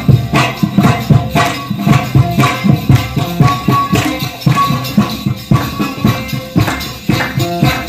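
Afghan dambura strummed hard and fast in a driving rhythm, a few picked melody notes ringing out between the strums.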